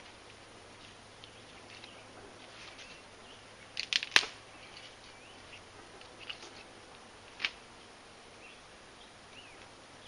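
Dead Douglas fir twigs snapped by hand: a few sharp cracks, the loudest cluster about four seconds in and single snaps later.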